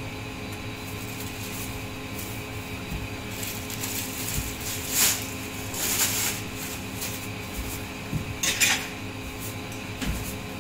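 Plastic sheeting rustling in short bursts about five and six seconds in as it is pulled off a body, and another brief, louder handling noise near eight and a half seconds, over a steady hum.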